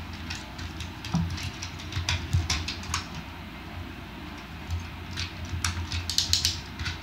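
Hard plastic parts of a Transformers action figure clicking and rattling as it is handled and its panels and joints are shifted. The clicks are irregular, with a quick run of them about six seconds in.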